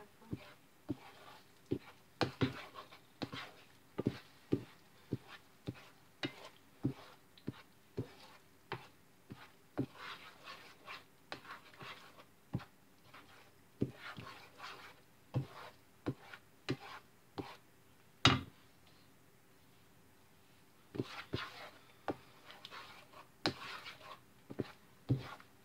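A spatula scraping and knocking against a frying pan as eggs are stirred and scrambled, about one or two short knocks a second. There is a brief pause about three-quarters of the way through, just after the loudest knock.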